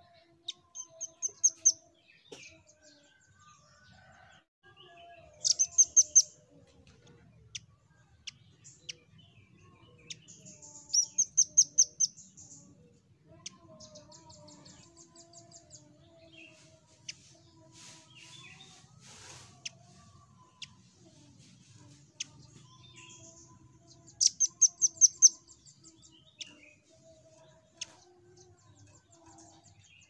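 Velvet-fronted nuthatch calling: rapid bursts of about half a dozen sharp, high chit notes, loudest about a second in, around 6 s, around 11 s and near 25 s, with scattered single chips in between.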